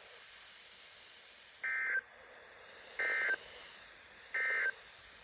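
Three short, identical bursts of buzzy digital data tones from a NOAA Weather Radio broadcast, each under half a second and about a second and a half apart: the EAS/SAME End of Message code that closes the warning. A faint steady hiss runs underneath.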